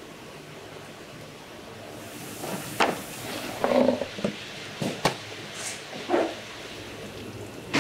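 Wooden tofu-pressing trays knocking and clacking against each other as they are lifted and stacked: a string of about seven irregular sharp knocks starting about three seconds in, over a steady background noise.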